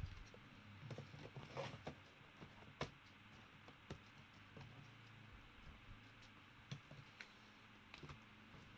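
Faint scattered clicks and light plastic handling noises of a hard-disk caddy being fitted into a laptop's optical drive bay, over near silence.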